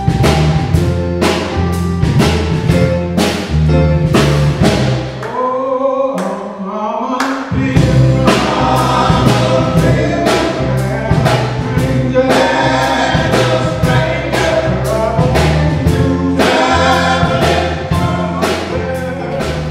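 A men's gospel vocal group singing in harmony over drums and a bass line, with drum hits about twice a second. Near the middle the drums and bass drop out for about two seconds, leaving the voices alone, and then they come back in.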